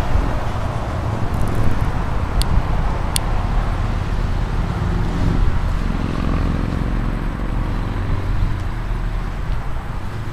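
Small petrol engine of a zero-turn riding mower running steadily at idle.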